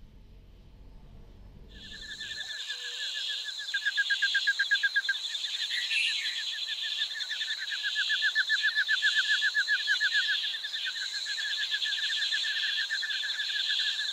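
Tropical forest ambience: a dense, steady chorus of calling animals with rapid pulsing chirps, coming in about two seconds in.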